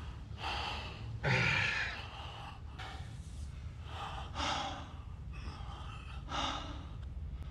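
A man's heavy, ragged gasps and strained breaths, roughly one a second, in a strangling struggle with a cord around the neck.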